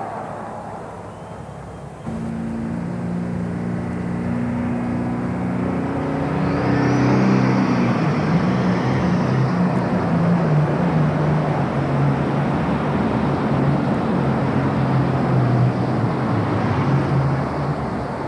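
Super stock John Deere pulling tractor's turbocharged diesel engine running at low, shifting speed, its pitch stepping up and down. A brief high whistle rises about seven seconds in.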